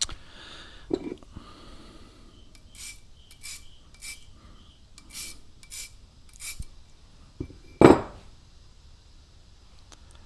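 Short rasping strokes of a steel broadhead blade being sharpened by hand, about eight strokes half a second apart, then one louder knock about eight seconds in.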